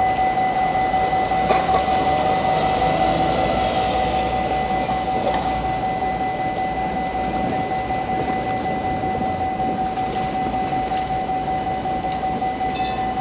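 Busy city traffic at a bus and tram intersection: buses running and passing. A steady high-pitched tone runs throughout, with a few brief clicks.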